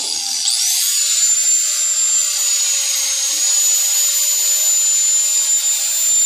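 Electric angle grinder running free with a steady high whine. Its pitch dips and spins back up about half a second in, then holds steady. This is the grinder thought dead after being overworked, back running and not sounding too bad.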